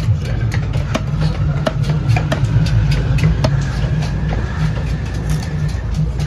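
Long knife chopping seer fish on a wooden log block: quick sharp knocks, roughly two a second and unevenly spaced. Under them runs a steady low rumble.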